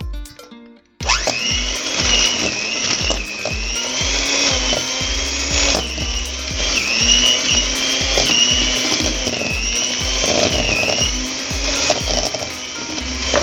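Electric blender motor starting about a second in and running steadily, its whine wavering up and down, over background music with a steady beat.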